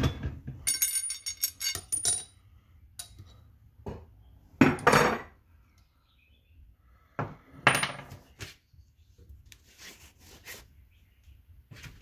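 Metal clinks and knocks from a manual tire changer and motorcycle wheel being handled. Near the start a quick run of ringing metallic clicks comes as the clamp is worked off the threaded centre shaft. Two heavier knocks, about five and eight seconds in, are the loudest sounds as the wheel is lifted and turned over on the stand.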